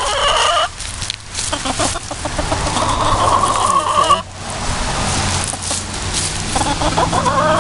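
Chicken calling nearby: three drawn-out calls, the longest in the middle lasting about a second and a half.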